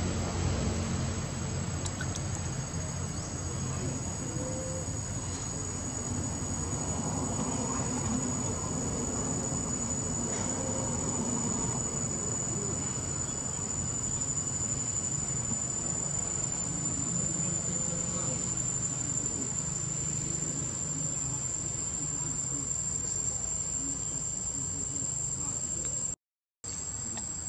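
Steady high-pitched insect drone, holding a single pitch that creeps slightly upward, over a low background rumble. The sound cuts out for a moment near the end.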